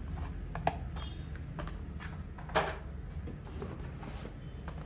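Hot Wheels blister-pack cards being handled and slid against each other in a cardboard case: a few light clicks and rustles of card and plastic, with one sharper tap about two and a half seconds in.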